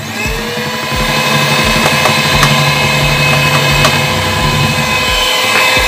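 Electric hand mixer starting up and running steadily at low speed, its beaters whisking through thick egg-foam cake batter in a bowl. The motor's hum rises briefly in pitch as it comes up to speed, then holds level.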